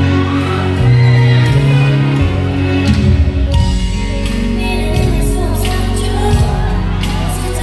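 Live ballad performance through a concert sound system: women singing over sustained low bass and keyboard notes, heard from the audience.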